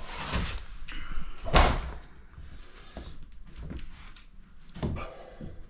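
Knocks and clatter from a hard plastic dog kennel as a dog moves in and out of it: a loud knock about a second and a half in, another near the end, and lighter clicks between.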